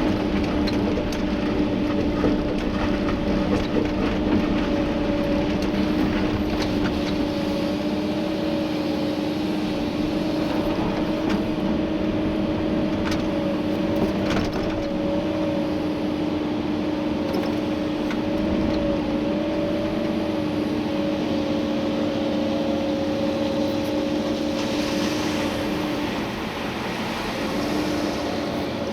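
Komatsu PC290-11 excavator's diesel engine and hydraulics running steadily under working load, with a steady droning tone and a few scattered knocks from the digging. The sound eases slightly near the end.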